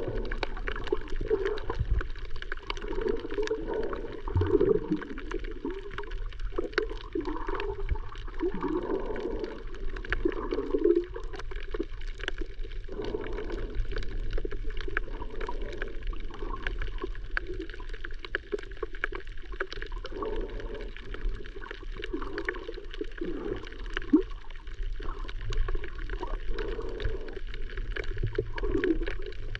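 Sea water gurgling and sloshing around a camera taken snorkeling, with many small clicks throughout.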